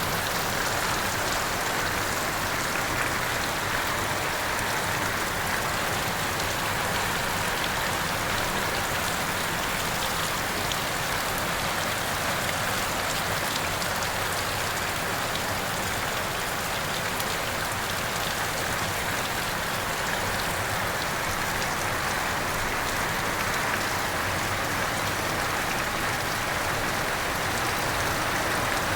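Heavy rain falling steadily, a dense even hiss of drops striking surfaces, with faint scattered drop ticks.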